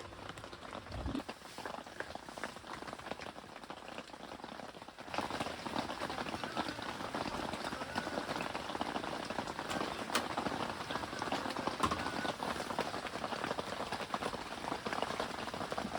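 Pot of broth with minari, mushrooms and meat boiling hard and bubbling over, a dense crackling bubble and sizzle that grows louder about five seconds in.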